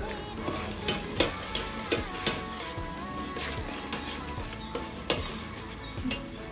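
Metal slotted spoon stirring a tomato sauce in a stainless steel pot, with irregular clinks and scrapes of metal on metal against the pot.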